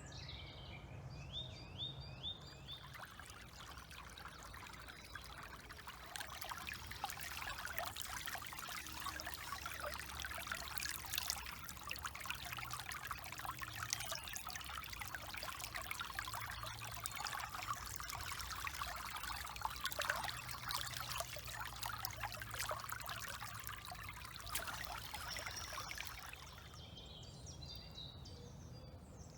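Small woodland stream trickling and rippling, with many small splashes and gurgles through a steady wash of water; it cuts off suddenly near the end.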